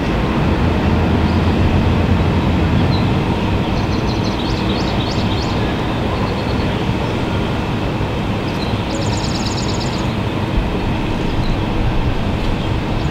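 A steady broad outdoor rumble with a constant low hum under it. Two short runs of high chirps come through, one just before the middle and one about two thirds of the way in.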